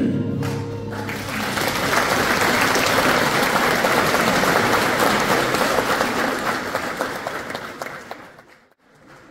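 Audience applauding in a hall right after group singing ends, the clapping building up about a second in and dying away near the end.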